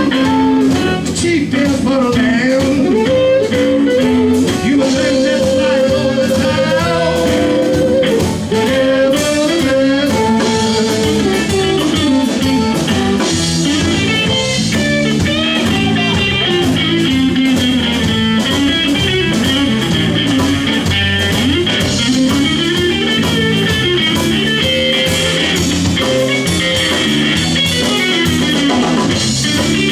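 Live blues band playing: a harmonica cupped to a microphone takes the lead with wavering, bending notes over electric guitar, electric bass and drum kit.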